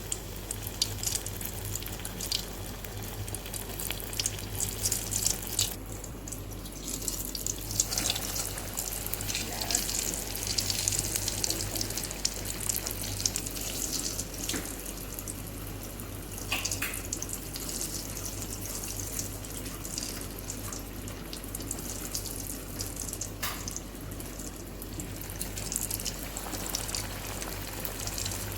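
Battered cheese-and-potato pakoras deep-frying in hot oil: a steady sizzle with frequent small crackles and pops, over a steady low electrical hum.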